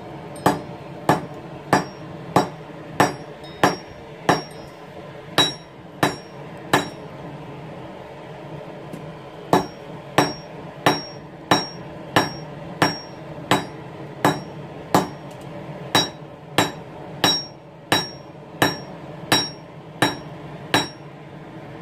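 Hand hammer striking hot steel bar on an anvil, steady blows about one and a half a second, each with a short metallic ring. The blows stop for a couple of seconds about seven seconds in, then start again and go on until near the end.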